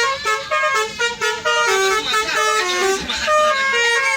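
Indonesian 'telolet' multi-tone bus horn playing a quick tune of steady notes that step rapidly from pitch to pitch.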